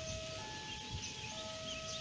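Railway level-crossing warning alarm sounding ahead of an approaching train: an electronic two-tone signal alternating between a lower and a higher tone about once a second. Short high chirps sound behind it.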